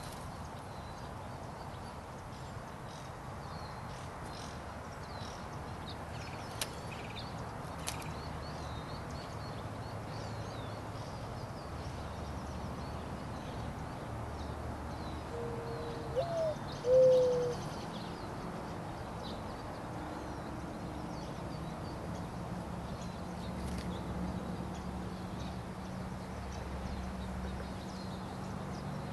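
Open-air ambience with faint, scattered high bird chirps. About sixteen seconds in comes a short, low two-note call, the second note sliding down, which is the loudest sound. A low steady hum sets in during the second half.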